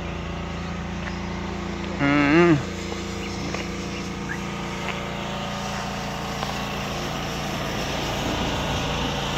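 Pressure washer engine running steadily, with the hiss of the water spray growing stronger near the end. About two seconds in, a short, loud, wavering call cuts across it.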